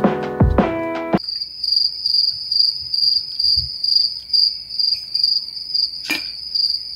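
Music cuts off abruptly about a second in, giving way to a cricket chirping, a high, steady trill that pulses about three times a second. A single sharp click sounds near the end.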